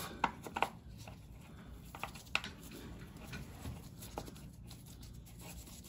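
Faint, scattered light clicks and taps as a sump bolt is caught in its thread to hold the oil sump up against the engine block.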